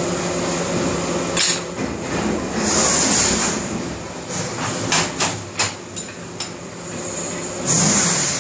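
Metal clanks and clicks from a steel tube being bent around the die of a pipe-bending machine, with a cluster of sharp knocks about five seconds in. A steady hum runs underneath, with short patches of hiss.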